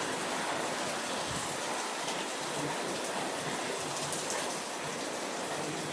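Rain falling steadily, an even hiss with no single drops standing out.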